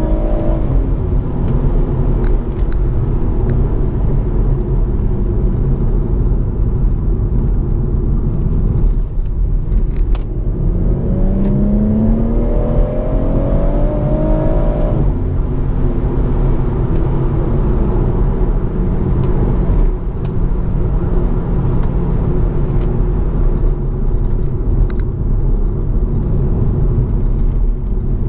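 BMW M140i's turbocharged 3.0-litre straight-six with the M Performance exhaust, heard from inside the cabin while driving: a steady engine and road drone. About ten seconds in, the engine note rises in pitch under acceleration for several seconds, then cuts off suddenly about halfway through.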